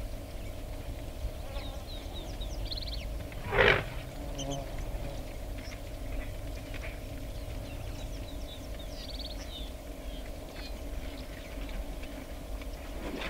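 A single short, loud snort from an animal at a waterhole, about three and a half seconds in, over a steady low hum with scattered bird chirps.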